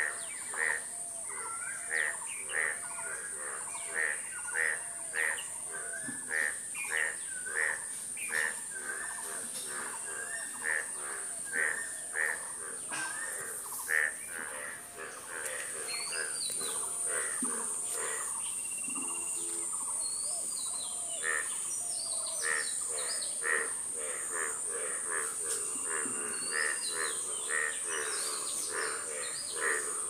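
Several songbirds chirping and singing in a busy chorus, with short calls repeating about twice a second over a steady high hiss. About halfway through the mix changes, and a bird repeats short falling whistled phrases among the chirps.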